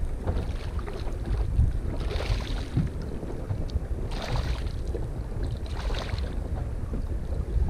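Wind buffeting the microphone with a steady low rumble over choppy lake water, with three short splashes about two, four and six seconds in as a hooked smallmouth bass thrashes at the surface beside the boat.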